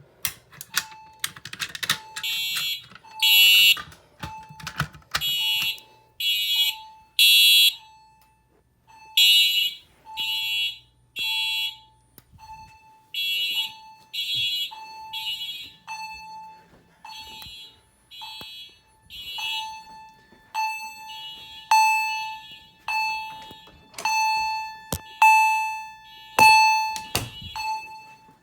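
Fire alarm system in alarm, its horns sounding in loud pulses about once a second. Early on they come in groups of three with short pauses, the temporal-three evacuation pattern. A single steady tone pulses along with each blast.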